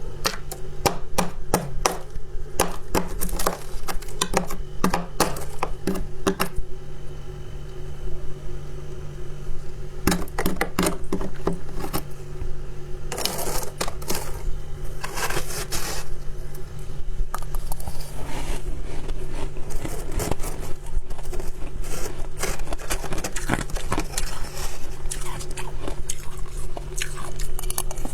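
Soft white ice or freezer frost crunched and chewed close to the microphone: a long run of sharp, irregular crunches, thicker in places, over a steady low hum.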